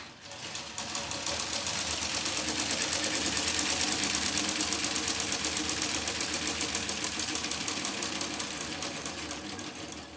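Cordless drill turning a plastic K'NEX gear train and fishing-reel-style spool, a fast rhythmic clatter of about six beats a second as the reel winds the string back in. It builds over the first couple of seconds and eases off toward the end.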